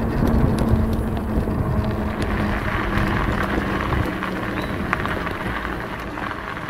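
Wind buffeting the camera's built-in microphone as a folding e-bike rides along a gravel path, with tyre crunch and clicks from the path surface. Under it is a steady hum from the bike's motor. The rumble and the hum both ease off about four seconds in.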